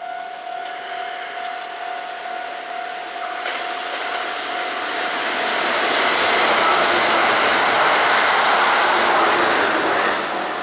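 Kintetsu limited express electric train passing at speed: a rushing noise of wheels and running gear builds from about four seconds in, stays loudest for several seconds, then drops away near the end. Before the train arrives, a steady high tone sounds and fades out as the rush grows.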